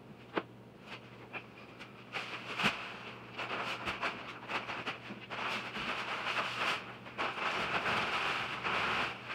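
Sand pouring from a paper sack through a cut opening into an old steel hot water tank: a couple of sharp knocks, then a steady hiss of running sand from about two seconds in.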